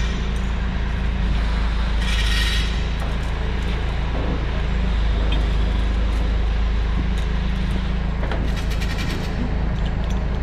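Forklift engine idling steadily, with a short rush of noise about two seconds in and a metal lifting chain rattling near the end.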